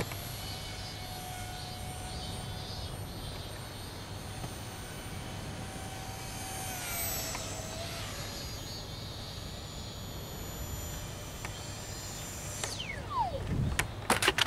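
Small electric RC plane's brushless motor and two-blade propeller whining steadily in flight. The pitch slides down around the middle and drops steeply near the end. A few sharp knocks follow near the end.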